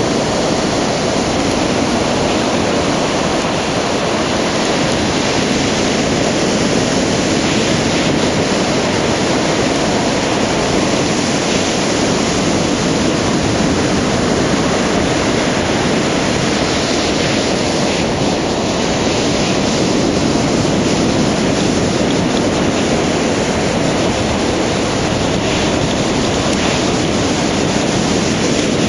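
Ocean surf breaking and washing up the beach, a steady loud rush of churning water.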